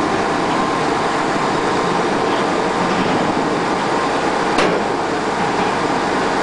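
SUNTON SE220 amphibious excavator running, its engine under load and its pontoon tracks clanking as it climbs onto a lowboy trailer; a single sharp knock about four and a half seconds in.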